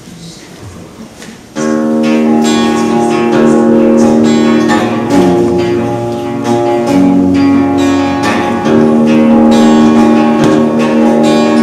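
Electric guitar played through a small Marshall combo amp. After a quiet first second and a half, chords start suddenly and ring on, each held a second or two before the next, in a steady progression.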